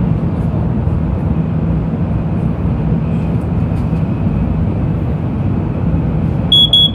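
Steady low rumble and rush of a Shinkansen bullet train running at speed, heard inside the passenger car. Near the end, a quick run of short, high electronic beeps starts.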